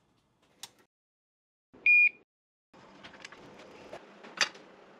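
A rocker switch clicks, then about two seconds in a single short high electronic beep sounds. Faint hiss with light clicks and taps of handling follows to the end.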